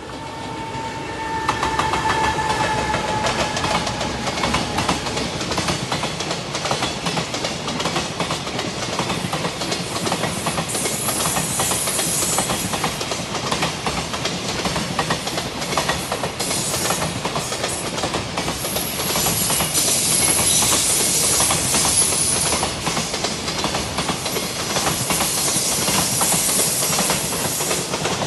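JR freight train hauled by an EF210 'Momotaro' electric locomotive passing at a level crossing, its wagons' wheels clattering steadily over the rail joints. It grows louder about a second and a half in and stays loud as the wagons roll by.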